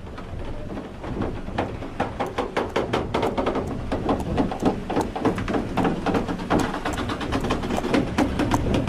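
Horse hooves clopping on the planks of a wooden horse-driven turntable, a quick irregular clatter of knocks that starts about a second and a half in, over a steady low rumble.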